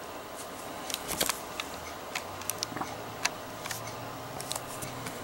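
Scattered light clicks and taps of metal Zippo lighters being handled and set down in place among others, about a dozen small sharp knocks spread unevenly.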